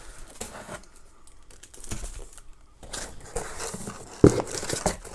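Cardboard shipping box and its packing paper rustling and crinkling as hands rummage through it and lift items out, with one sharp knock about four seconds in.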